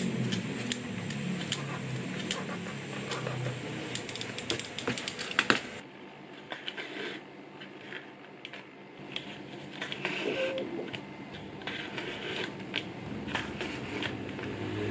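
Sharp clicks and scrapes of a small hand blade trimming leather on a cutting mat. About six seconds in, quieter handwork takes over: scattered ticks and short rasps of hand-stitching leather, the thread pulled through the punched holes.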